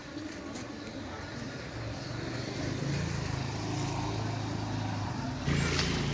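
An engine running with a steady low hum that grows louder about two and a half seconds in, and a sudden burst of hissing noise near the end.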